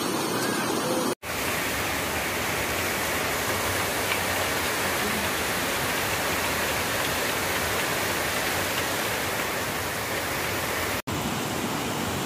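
Heavy rain pouring down in a steady hiss, cutting out for an instant about a second in and again near the end.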